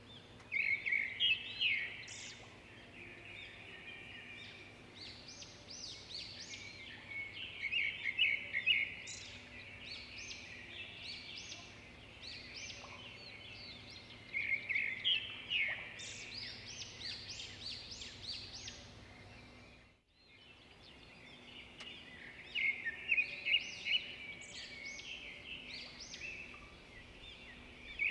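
Clusters of high, bird-like chirping and twittering calls recur every several seconds over a faint steady background hum. The sound drops out briefly about two-thirds of the way through.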